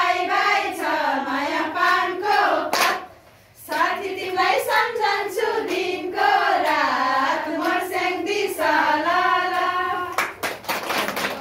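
A group of women sing a Nepali classroom action song in unison while clapping along. The singing breaks off briefly about three seconds in, then resumes. Near the end it gives way to a run of claps.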